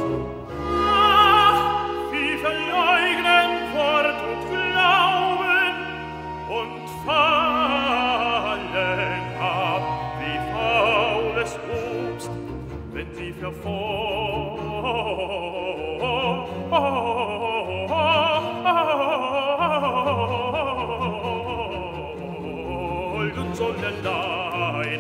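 Tenor singing a baroque recitative with wide vibrato, accompanied by long held bass notes from the continuo, including a double bass.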